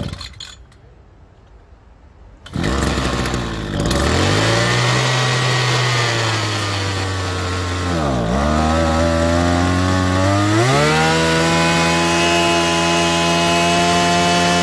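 Two-stroke backpack brush cutter engine pull-started with the throttle slightly open: it catches about two and a half seconds in, runs, sags almost to a stall around eight seconds, then picks up to a steady higher speed. It is smoking heavily and tends to stall, which the owner puts down to a muffler clogged with oil.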